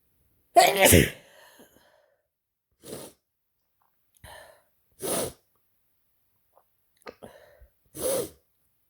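A person with a head cold sneezing once, hard and voiced, about half a second in, followed by several short, quieter breath and nasal sounds spaced a second or two apart.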